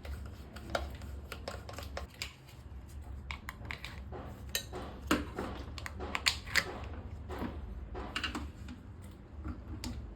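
Irregular clicks, taps and light knocks of hand work with tools and fittings, a few louder ones in the middle, over a steady low hum.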